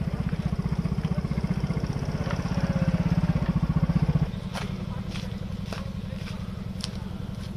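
A motor vehicle's engine running nearby, a rapid low throb that grows louder, then cuts off abruptly a little after four seconds to a quieter engine hum with scattered sharp clicks.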